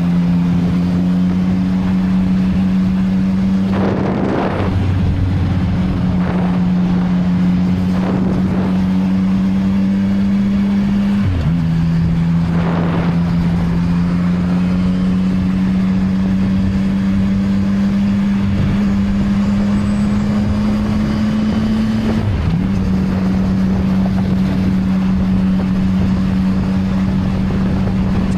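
CFMoto 675NK motorcycle's inline-three engine on its stock exhaust, running steadily under way. Its pitch creeps up slowly and then drops sharply twice, about eleven seconds in and again a little past twenty-two seconds, as it shifts up a gear. A few brief rushes of wind noise come over it.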